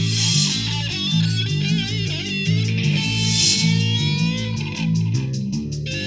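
Electric guitar lead played over a backing track with bass and drums: a wavering vibrato phrase about two seconds in, then a long sustained note.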